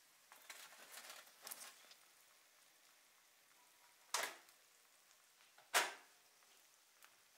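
Hot frying oil crackling and sizzling for a second or two as fried samosas are lifted out in a wire strainer. Then two sharp hits, the second the loudest.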